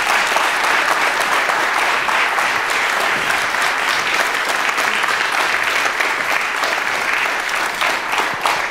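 Audience applauding steadily in a large hall, thinning to scattered claps near the end.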